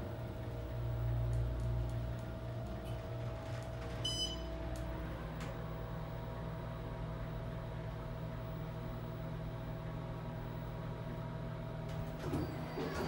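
2007 Otis hydraulic elevator running up, its steady hum filling the car, with a short high electronic beep about four seconds in. The hum changes character about a second after the beep.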